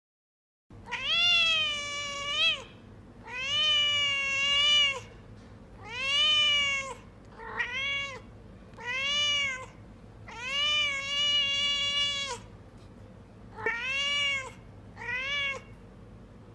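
Domestic cat meowing over and over: about eight drawn-out meows with short pauses between them, some rising and falling in pitch, the last two shorter.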